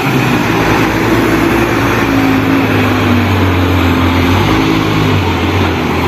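Diesel engine of a Liebherr all-terrain mobile crane truck running steadily as the crane drives slowly, a low hum with some broad road and engine noise.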